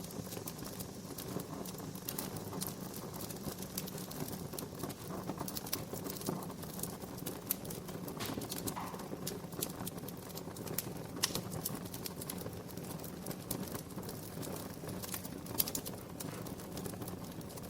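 Wood fire crackling: irregular sharp pops and snaps over a steady low rush of burning.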